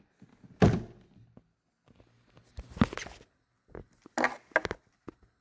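A few scattered knocks and thumps, one about half a second in, one near the middle and a quick cluster near the end.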